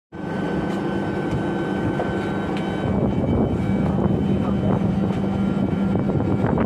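Machinery running with a steady hum, a few light clicks and knocks over it.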